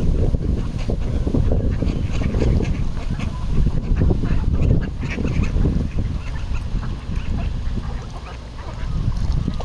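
Ducks on a pond giving many short, scattered calls over a steady low rumble.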